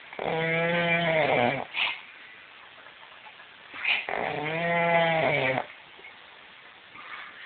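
Loud, pitched snoring: two long snores about four seconds apart, each lasting about a second and a half and dropping in pitch at the end, with short breathy sounds between them.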